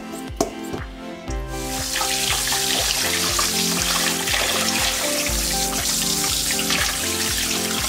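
Tap water running and splashing onto mackerel in a stainless steel colander, starting about a second and a half in, over background music. Before it, a couple of sharp snips from kitchen scissors cutting the fish's fins.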